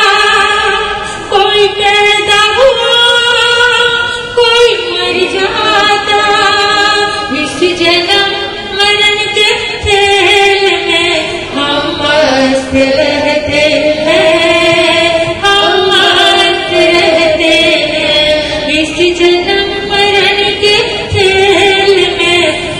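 A woman singing a Hindi devotional song (bhajan) in a slow melody with long held notes.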